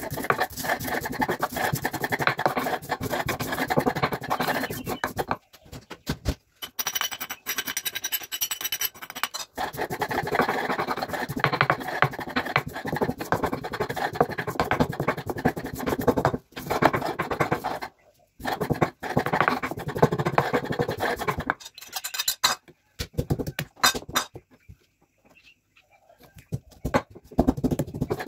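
Stone pestle grinding coriander seeds against a flat volcanic-stone mortar (cobek and ulekan), a rapid gritty scraping and crunching. It comes in several long spells broken by short pauses, and is softer for a few seconds near the end.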